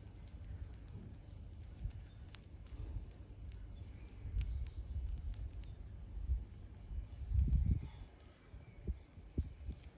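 Hands squeezing and crushing a soft material in the palms, close to the microphone: muffled rubbing and soft thumps with scattered small clicks, loudest a little past seven seconds in.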